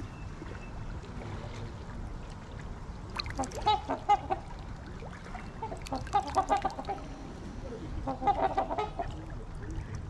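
Trumpeter swans calling: three short bouts of quick, repeated honking notes, a few seconds apart, over a low steady background rumble.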